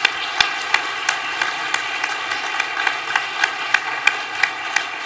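Audience applauding steadily, with a few sharp individual claps standing out from the mass of clapping.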